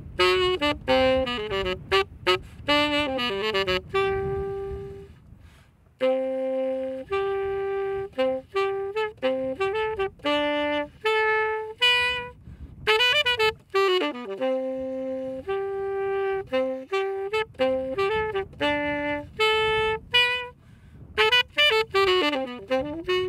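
Solo saxophone playing a slow, melancholy melody of held notes broken by quick runs, dropping out briefly about five seconds in and again around the middle.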